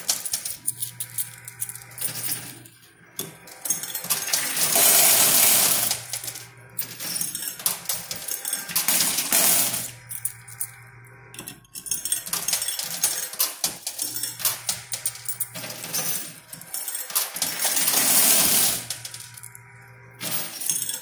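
Coin pusher machine: quarters clinking and sliding against each other as the pusher shelf moves, over a steady motor hum, with two louder spells of dense coin clatter about five and eighteen seconds in.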